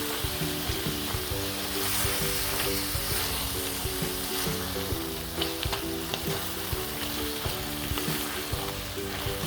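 Food sizzling in a frying pan while it is stirred, with the utensil now and then clicking against the pan.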